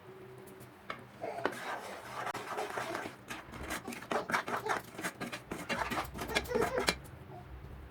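A spoon scraping and knocking rapidly against a heavy-bottomed pan as roasted gram flour is stirred into sugar syrup. It starts about a second in and stops shortly before the end.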